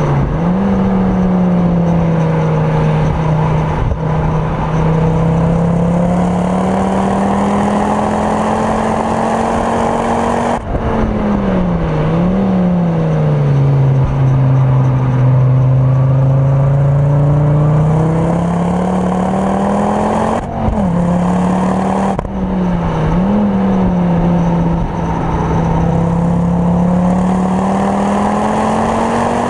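Ford Focus RS Mk2's turbocharged five-cylinder engine, heard from inside the cabin, working hard on track. The engine note climbs slowly under acceleration, sinks lower twice as the car slows for bends, and breaks off sharply several times at gear changes.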